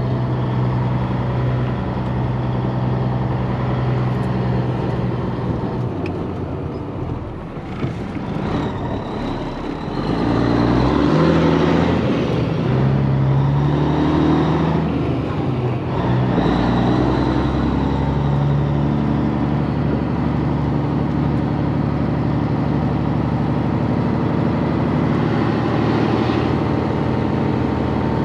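Caterpillar diesel engine of a Peterbilt 362 cabover heard from inside the cab, running steadily, easing off about a third of the way in, then pulling away with its pitch climbing and dropping in steps through several gear changes before settling into a steady run.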